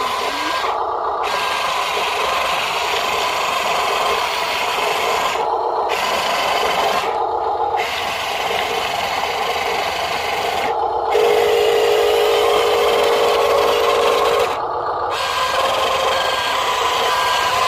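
Huina radio-controlled dump truck driving over sand, its electric motor and gears whirring with a buzzy mechanical rattle. It grows louder and steadier for a few seconds about two-thirds of the way through.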